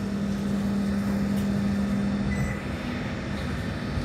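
BN coastal tram running, heard from on board: a steady hum over a low rumble from the running gear. About two and a half seconds in, the hum shifts slightly higher and gets quieter.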